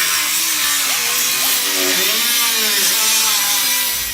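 A loud power tool running, a dense rushing hiss over a whine whose pitch wavers up and down.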